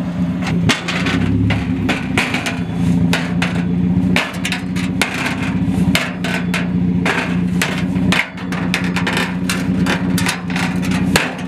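Straight-piped Mazda Miata's four-cylinder engine idling steadily, with repeated sharp metallic clanks and knocks, several a second, as a large sheet-metal exhaust tip is fitted over its tailpipe.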